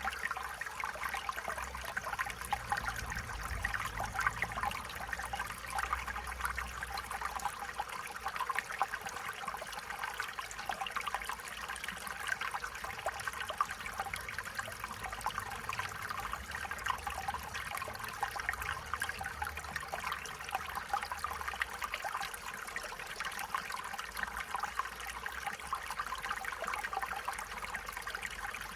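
Stream water trickling and burbling over stones, a steady continuous babble.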